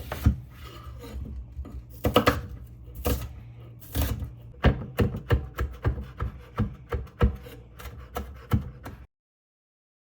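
Knife chopping on a cutting board: a few irregular knocks and clatters, then a run of regular strikes about three a second, over a steady low hum. The sound cuts off abruptly near the end.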